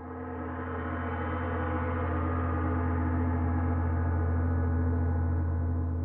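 Synthesized intro sound effect: a deep, sustained gong-like drone with many overtones, swelling in over the first few seconds and then slowly fading.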